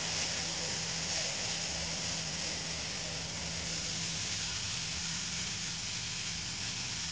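Potato and carrot strips sizzling steadily in hot oil in a wok, with a low steady hum underneath.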